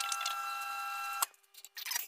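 Kenwood microwave oven running while heating Vinamold, a steady whirr with several high whining tones, cutting off abruptly just over a second in. Near the end, a brief scraping of a spatula stirring the melted Vinamold in a mug.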